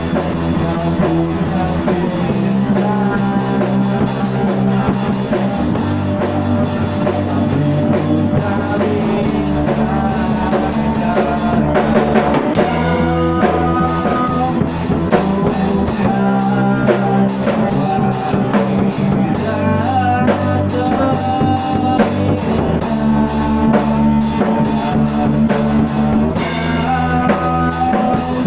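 Rock-styled band music with drum kit, bass and guitar playing a steady groove, apparently an instrumental passage without vocals.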